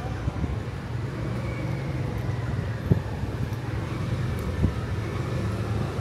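Street traffic: a steady low rumble of passing vehicles, with two brief knocks, about three seconds in and again near five seconds.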